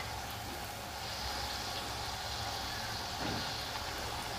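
Puris frying in hot oil in a kadhai over a slow gas flame: a steady sizzling hiss.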